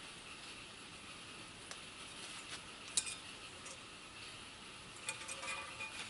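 Faint metallic clicks and clinks of small steel brake hardware being handled, with a sharp click about three seconds in and a few short ringing clinks near the end.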